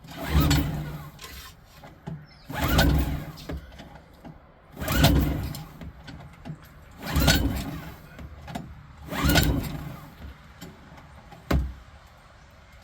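Suzuki DF2.5 four-stroke outboard being pull-started five times in a row, roughly every two seconds, the recoil rope whirring and the engine turning over without catching, then one sharp click near the end. The no-start is the owner's oil-level problem: his best guess is an overfilled sump tripping the oil level sensor.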